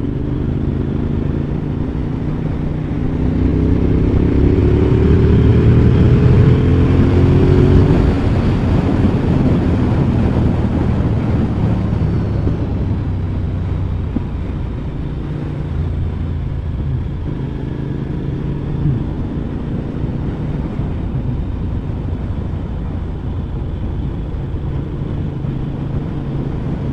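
Motorcycle engine running on the move, with wind and road noise. The engine climbs in pitch and loudness over the first eight seconds or so as it accelerates, then settles to a steadier cruise.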